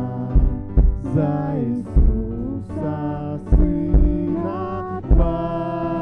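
Live church worship band music: held chords over a kick-drum beat, with a voice singing.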